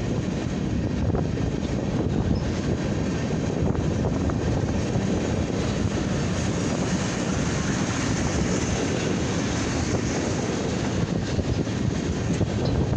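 Freight train rolling past at about 29 mph, a string of flatcars loaded with rail: a steady rumble of steel wheels on the track.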